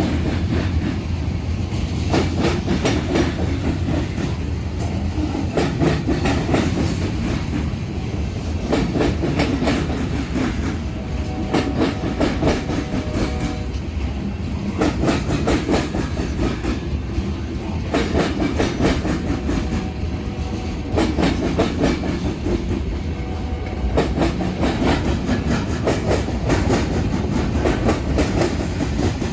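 BNSF train cars rolling over a railroad diamond crossing. The wheels clatter and bang over the crossing frogs in a fast, continuous run of impacts above a steady rumble.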